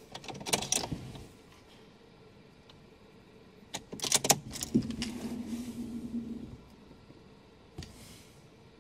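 A car ignition key with its key ring is turned off and then back on, the keys clicking and jangling each time. About five seconds in, a steady hum lasts for about two seconds after the key is turned back on.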